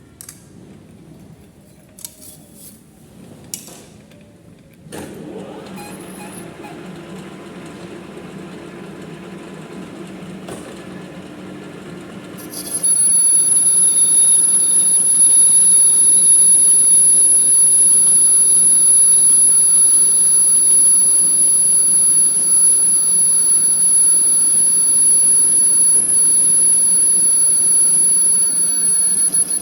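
Manual metal lathe: a few clicks, then the machine starts about five seconds in and runs with a steady hum. About halfway through, a loud, steady, high-pitched squeal of the cutting tool on the metal workpiece sets in and stops suddenly at the end.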